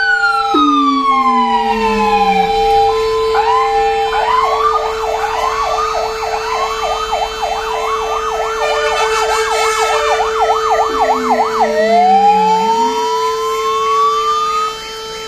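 Fire engine electronic sirens sounding. A slow falling wail gives way to a fast up-and-down yelp for several seconds, then a rising wail, all over a steady held tone. It drops off sharply near the end.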